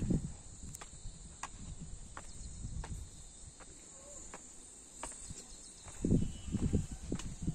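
Footsteps of someone climbing stone steps: sharp, regular steps about three every two seconds, with a few louder, muffled low thumps near the end.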